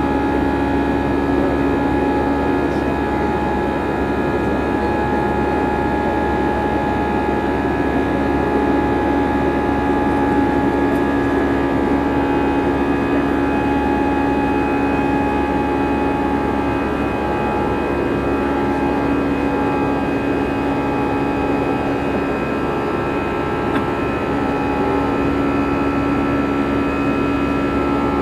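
Airbus A320's CFM56-5B turbofan engine heard from inside the cabin during the climb: a steady roar carrying the engine's buzzsaw, a cluster of steady droning tones from the fan at high thrust.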